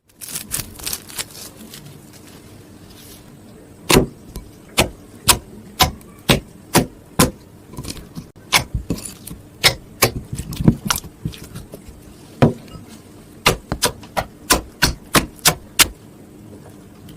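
Homemade slime being poked and squeezed, giving a series of sharp clicking pops, about two a second.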